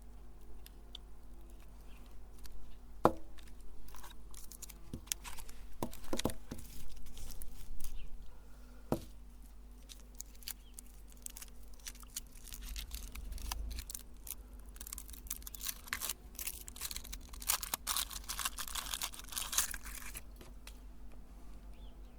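Chocolate umbrella candies crunching and crackling as they are forced through a meat grinder: scattered sharp snaps at first, then a dense stretch of crackling over the last third.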